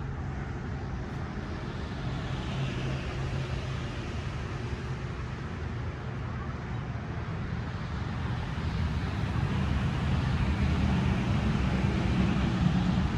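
Steady low motor-vehicle engine hum with road noise, growing somewhat louder in the last few seconds.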